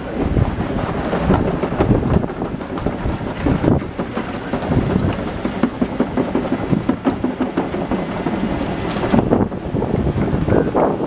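Wind buffeting the microphone: a loud, uneven rumble that surges and dips, with a few faint clicks from a bricklaying trowel on brick and mortar.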